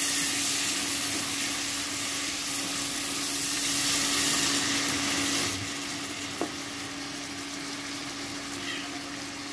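Potato and tomato pieces sizzling in hot oil in a wok while a silicone spatula stirs them; the sizzle grows quieter about five and a half seconds in. A steady low hum runs underneath, with one short click near the end.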